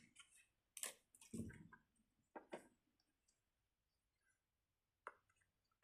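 A few soft, scattered clicks and a light thump from fidget toys being handled, with near silence between them.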